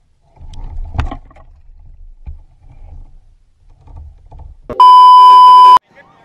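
Low rumble of wind and handling on the microphone with a knock about a second in, then a very loud electronic beep, one steady tone lasting about a second, cutting in and out abruptly near the end.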